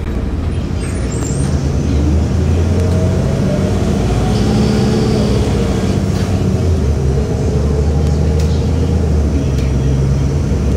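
Engine and road noise heard from inside a 2018 Hometown Trolley, a rubber-tyred replica trolley bus, while it drives. A steady low drone runs underneath, and an engine tone rises and then falls between about two and six seconds in.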